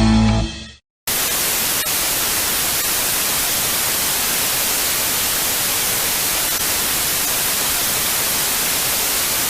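Music cuts out within the first second, and after a brief silence a steady, even hiss of static starts and holds at a constant level.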